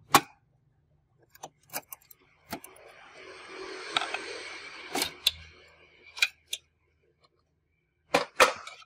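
Plastic front bezel of a desktop computer case being pried and pulled off its steel chassis: scattered sharp plastic-on-metal clicks and clacks, with a stretch of rough scraping in the middle and two loud clacks near the end as the bezel comes free.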